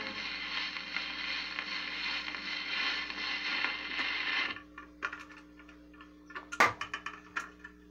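Automatic record changer of a 1961 Arvin phonograph cycling between sides of a 78 rpm record set. Steady record hiss stops about halfway through. A series of mechanical clicks and clunks follows, with one loud clack about two and a half seconds later, as the changer works, all over a steady hum.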